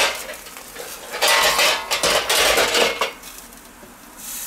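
Stainless steel roasting pan lifted off an electric table grill with metal tongs and set down on the grill rack: metal clattering and scraping on metal, loudest between about one and three seconds in. Bacon-wrapped meatballs sizzle faintly on the grill near the end.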